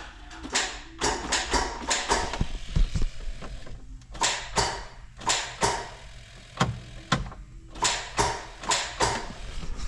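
Rapid sharp clicking, about two to three clicks a second in runs with short pauses, from the John Deere 6115M tractor's starting circuit as the key is tried: the freshly rebuilt starter clicks but does not crank the engine.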